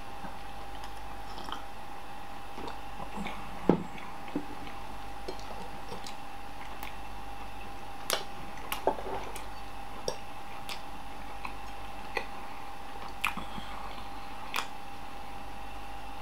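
A person chewing and eating a slice of beef pepperoni pan pizza, with scattered short wet mouth clicks and smacks, the loudest a little under four seconds in, over a steady faint background hum.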